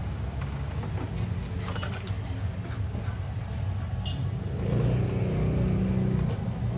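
Steady low engine-like hum that swells louder for a second or two about two-thirds of the way in, with a few faint clicks near the start.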